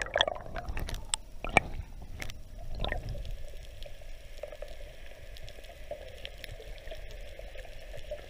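Water sound picked up by a camera underwater near the surface: splashing and bubbling with scattered clicks in the first three seconds, then a steadier muffled wash.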